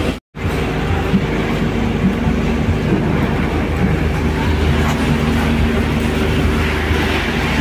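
A steady engine running with an even, low hum. It cuts out for an instant just after the start, and a few faint knocks come over it.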